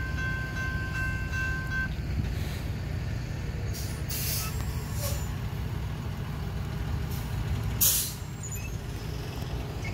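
A grade-crossing warning bell's electronic tone sounds over the low rumble of a Loram rail-grinding work train, and the bell stops about two seconds in. After that, several short sharp hisses of air come and go, the loudest near the end.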